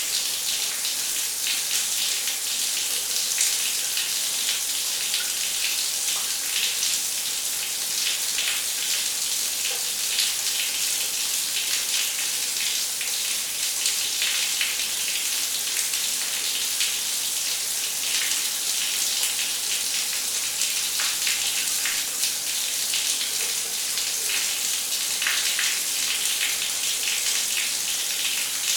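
Shower running: a steady spray of water hissing onto a surface, with small irregular splashes.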